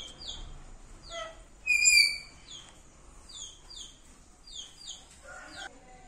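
Rose-ringed parakeet calling with short, high chirps that slide downward, mostly in quick pairs, and one louder, longer call about two seconds in.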